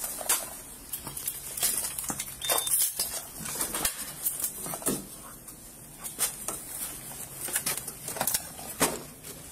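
Footsteps going up a stairway and on into a hallway, heard as an irregular run of knocks, with clothing rubbing on a body-worn camera and light clinks.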